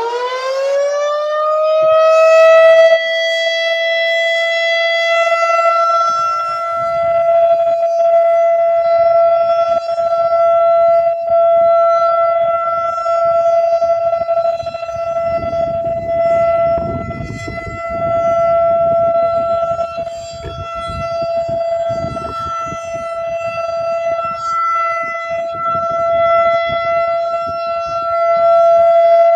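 Federal Signal 2001-DC roundback electromechanical tornado siren, really loud, finishing its wind-up with a rising pitch over the first couple of seconds. It then holds a steady alert tone that swells and fades in loudness every few seconds.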